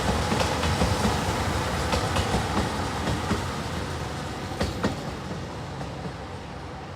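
A train running past, its wheels clicking over the rail joints amid steady running noise, with two sharper clicks a little past halfway; the sound fades steadily as the train moves away.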